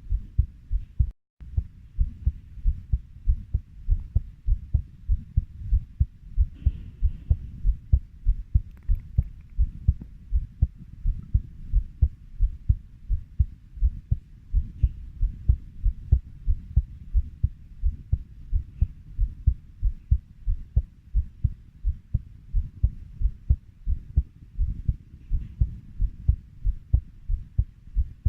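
Heartbeat at 90 beats per minute: steady low lub-dub thumps, about three a second, with a very short gap in the sound about a second in.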